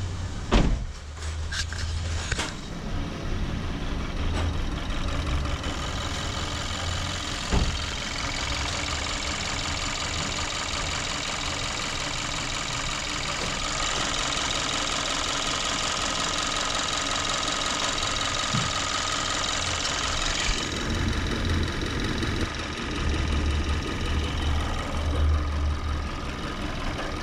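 2014 Kia Forte's 2.0 L GDI four-cylinder idling rough and shaking with a hard misfire, later traced to cylinder one, giving an uneven low pulsing. A steady high hiss joins in from about six seconds in and stops about twenty seconds in.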